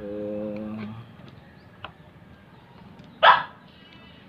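A dog barks once, sharply, about three seconds in, after a brief steady hum at the start.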